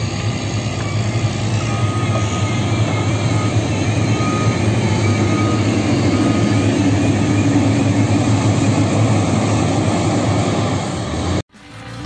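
Liugong 4180D motor grader's diesel engine running steadily under load as its blade pushes a heap of loose dirt, with the soil scraping and tumbling. The sound cuts off abruptly near the end.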